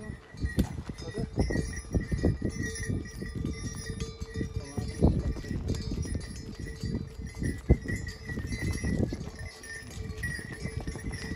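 Bells on a passing train of pack mules ringing steadily as the animals walk, with the dull thuds of hooves on the dirt trail.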